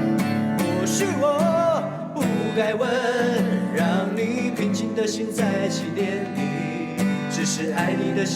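Strummed acoustic guitar under a male voice singing a slow ballad, the sung line swooping up and down.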